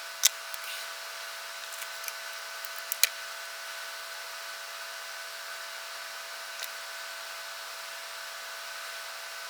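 A steady hum with a few sharp clicks and taps, the loudest about a third of a second in and another just after three seconds.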